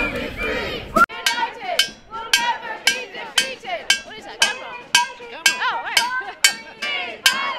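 Crowd chanting briefly, then a wooden stick beating a metal pan in a steady rhythm of about three strikes a second, each strike ringing briefly, with voices under it.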